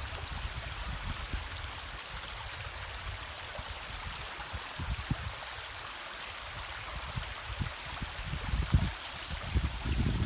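Anvil Creek's water rushing over gravel in a steady hiss, with irregular low thuds and rumbles.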